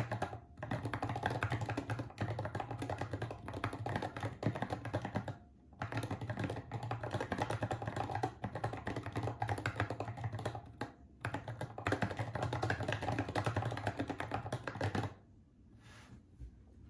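Fast typing on a keyboard: a dense run of key clicks with a few short pauses, stopping about fifteen seconds in.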